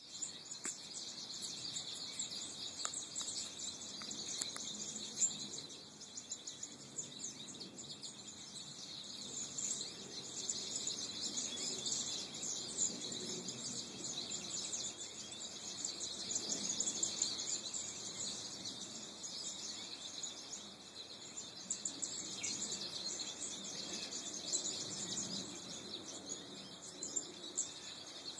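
A flock of goldfinches twittering together, a dense, continuous chatter of many overlapping high chirps.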